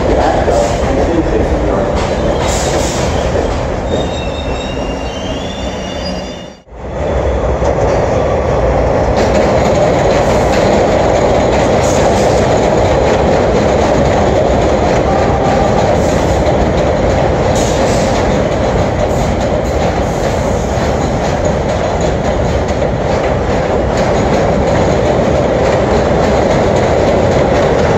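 New York City subway 6 local train of R62A cars running on the Pelham Line. The wheels and motors make a steady loud rumble with clickety-clack over the rail joints. A high wheel squeal glides up in pitch about four to six seconds in, and the sound drops out briefly near seven seconds before the steady train rumble returns.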